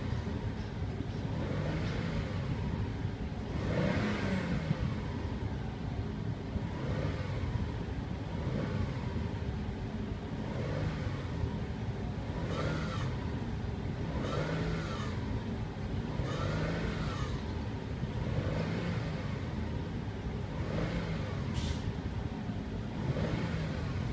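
2008 Subaru WRX engine blipped again and again from idle, its pitch rising and falling about every two seconds, with the weird rev noise the owner describes as grinding. A brief hiss comes near the end.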